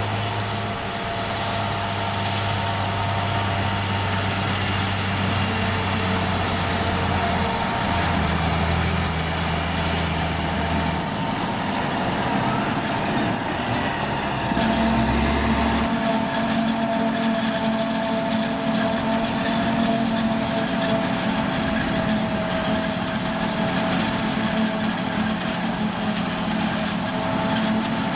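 Farm diesel engines at work: a Massey Ferguson 6485 tractor running steadily as it pulls a silage trailer past, its engine note shifting. About halfway through the sound changes abruptly to a John Deere tractor and a John Deere 7450i forage harvester running together while chopping maize, with a steady whine.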